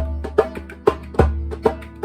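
Live acoustic music: percussion struck about twice a second, with a deep booming stroke every second or so, over sustained plucked-string tones.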